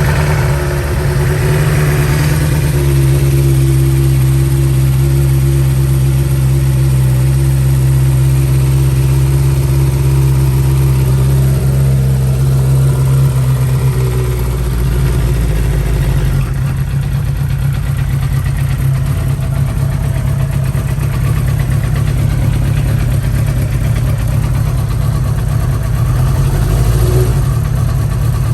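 Suzuki GSX-R inline-four motorcycle engine running at a steady idle, freshly fired up for its first start after a rebuild. The engine note changes about halfway through, settling into a different idle.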